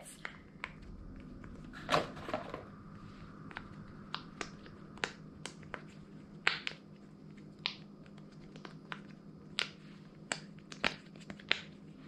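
Silicone pop-bubble fidget toy being pressed with the fingers: a string of irregular short pops and clicks, the strongest about two seconds in.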